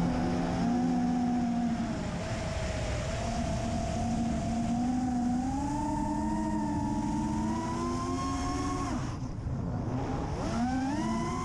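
Brushless motors of an FPV racing quadcopter whining, the pitch climbing slowly with throttle, dropping away about nine seconds in, then swooping up and down again as the throttle is punched and cut.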